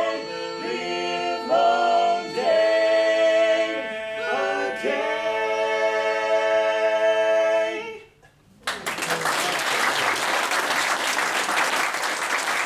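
Male a cappella quartet in tenor, lead, baritone and bass parts singing the song's ending, a few long chords closing on a final held chord. The chord cuts off about eight seconds in, and after a brief silence audience applause breaks out.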